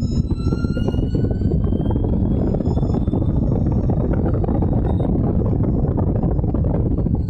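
Allard J2's V8 engine running hard under full throttle, its pitch climbing over the first couple of seconds as the car accelerates down the straight. Heavy wind buffeting on the open cockpit is mixed in.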